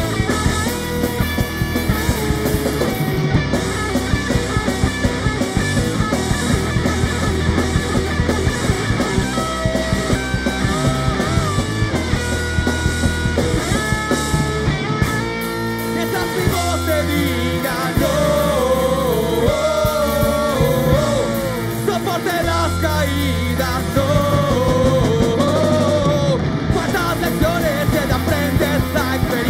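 Rock band playing live: electric guitar, bass and drums, with a lead melody bending up and down in pitch through the second half.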